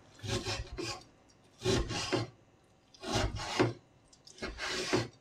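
Kitchen knife slicing thin-sliced pork on a wooden cutting board: four scraping cutting strokes, each under a second, roughly one every second and a half.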